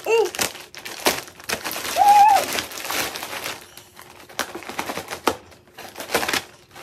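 Plastic mailer bag crinkling as it is cut open with scissors, with several sharp snips and rustles of the plastic.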